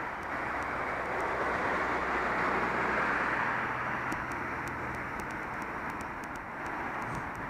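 Road traffic passing on the adjacent road: a steady noise of tyres and engines with a low hum, swelling to a peak about three seconds in and then easing off.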